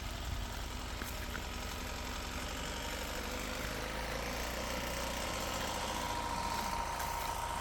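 A motor running steadily, with a faint whine that grows a little stronger about halfway through.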